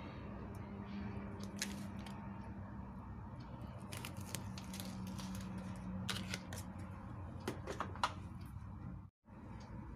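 Faint scattered clicks and taps of handling over a low steady hum; the sound cuts out briefly near the end.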